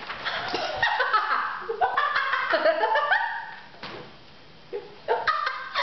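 A woman laughing in bursts, with a songbook page rustling as it is turned at the start.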